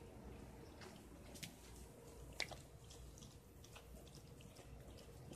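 Near silence with a faint steady hum, broken by a few soft wet clicks of a mother dog licking her newborn puppy, the clearest about one and a half and two and a half seconds in.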